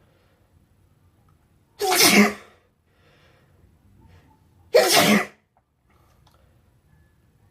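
A person sneezing twice, about three seconds apart.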